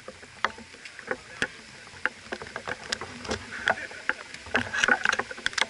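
Small-sided football game on an artificial-turf pitch: irregular sharp knocks of the ball being kicked and players' feet, getting busier in the second half.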